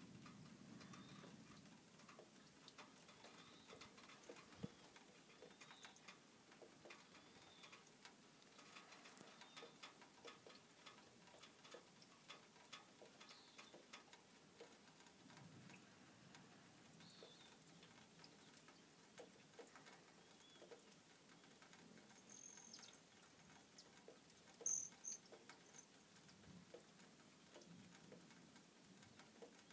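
Near silence, with faint scattered ticks and clicks and a brief high-pitched chirp about 25 seconds in.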